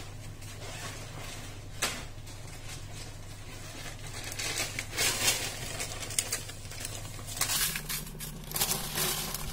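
Dried red chillies crackling and crinkling as they dry-roast in a pan, with a rustling burst near the end as a hand tosses them. A steady low hum runs underneath.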